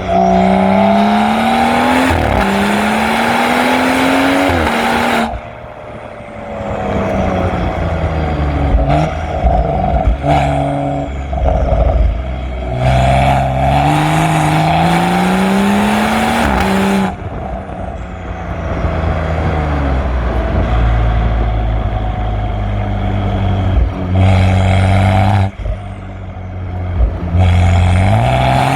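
BMW M135i's turbocharged N55 straight-six, with a decat and middle-silencer-delete exhaust, revving up hard through several acceleration pulls. Between pulls it drops back as the throttle lifts and a gear changes. The two longest pulls come about 5 s in and about 17 s in, with shorter bursts near the end.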